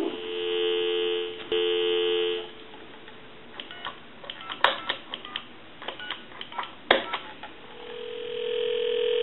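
Telephone dial tone, a steady two-note hum with a brief break about one and a half seconds in, stops about two and a half seconds in as the wooden wall telephone's rotary dial is worked, followed by scattered sharp clicks from the dial. Near the end a steady single ringback tone comes in and grows louder as the dialled time-and-temperature line rings.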